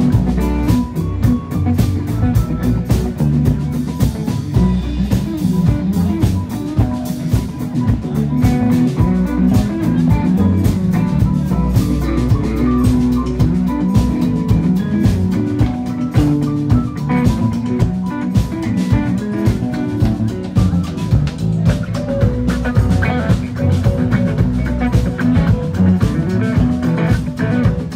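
Live rock band playing: electric guitar over bass and a drum kit keeping a steady beat.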